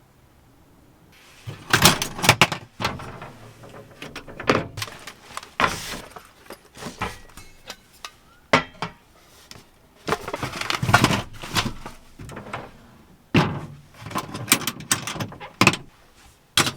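A run of irregular knocks, clunks and clatters, starting about a second and a half in, some sharp and some with a short rustle.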